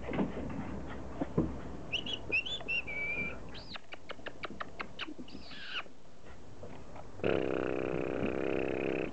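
Border collie puppies whining in high, squeaky, bird-like calls: a few rising-and-falling squeaks and a held whine about two seconds in, then a falling whine. A run of quick ticks comes in between, and a louder steady, drawn-out sound lasts about two seconds near the end.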